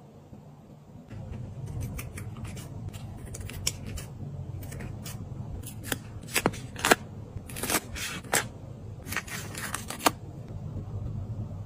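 Scissors snipping paper in a run of short, crisp cuts, with the loudest snips in the middle and one last sharp snip about ten seconds in, over a low steady hum.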